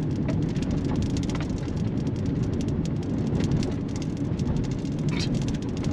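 Steady low rumble of a car moving along the road, with a few faint clicks.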